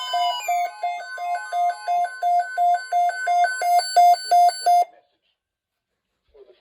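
Electronic alert alarm: a falling sweep gives way to a rapid, even beeping at about three beeps a second with a shifting higher tone pattern, which cuts off suddenly about five seconds in. It signals an incoming weather alert.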